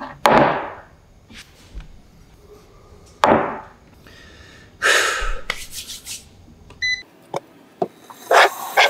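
Two loud breathy bursts a few seconds apart, then a short electronic beep about seven seconds in, followed by a few light knocks of kitchen things being moved on a wooden table.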